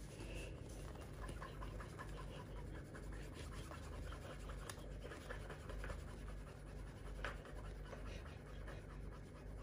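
Faint, quick scratchy rubbing: a small metal PCP air-rifle valve part being polished by hand in a greased cloth to bring up a smooth, flat finish.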